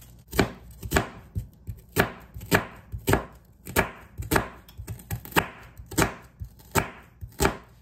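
Chef's knife chopping a red onion on a plastic cutting board: about a dozen even, crunchy strokes, roughly two a second.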